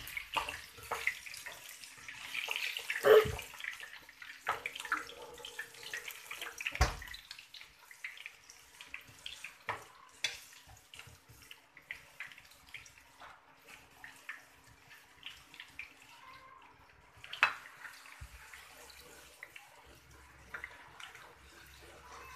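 Tuber slices frying in hot oil in a small wok, a steady sizzle. A metal spatula scrapes and knocks against the pan now and then, most sharply about 3 and 7 seconds in.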